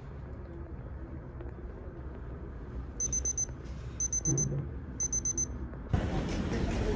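Small digital kitchen timer reaching zero and sounding its alarm: three bursts of rapid high beeps, about a second apart. Near the end it gives way to louder outdoor street background noise.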